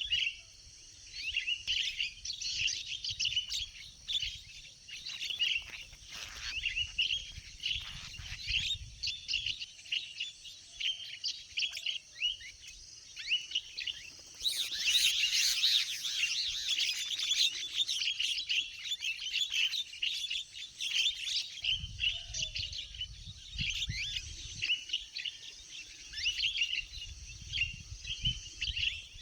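Many birds chirping and chattering in rapid, overlapping high calls that grow louder and denser about halfway through, with a low rumble in stretches early on and near the end.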